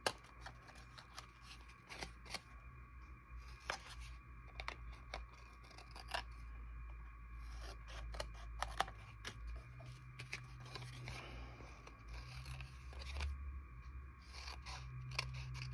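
Hand scissors snipping through paper, a run of short, irregular cuts as the edges of paper cards are trimmed.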